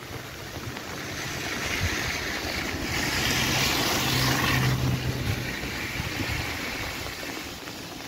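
An SUV drives past close by on the road; its engine hum and road noise build to a peak about halfway through and then fade away.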